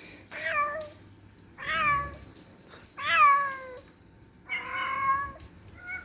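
Domestic cat meowing: four drawn-out meows about a second and a half apart, each sliding down in pitch, the fourth longer and steadier, then a short fainter mew near the end.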